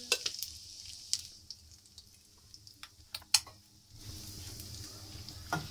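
Cumin seeds crackling in hot oil in a wok: scattered sharp pops over a faint sizzle, with the sizzle coming back steadier about four seconds in.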